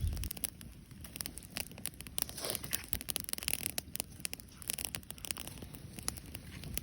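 Wood campfire crackling, with irregular sharp pops and snaps, and a brief low thump at the very start.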